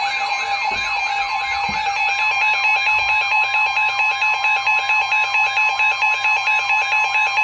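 Weather alert alarm sounding: an electronic siren-like warble repeating about three times a second over a steady high tone, with a faster pulsing beep joining about two seconds in. It signals an incoming severe thunderstorm warning.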